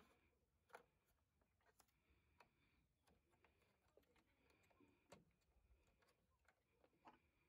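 Near silence, with scattered faint clicks of a roll of 120 film and its paper backing being handled and fitted into a plastic Lab-Box daylight developing tank.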